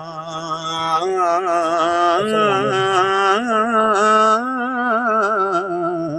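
A solo voice singing a slow, ornamented melody with heavy vibrato. It holds one long note for about the first second, then moves through wavering runs and held notes.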